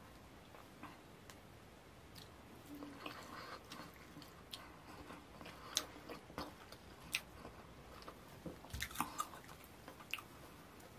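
Close-up chewing and wet mouth sounds of eating fufu with slimy ogbono soup, with sharp smacking clicks scattered through, most of them in the second half.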